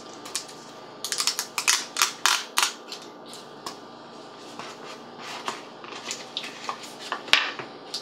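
A cardboard product box being handled and opened by hand: a quick run of sharp scrapes and rubbing about a second in, then scattered light clicks and taps as the lid comes off.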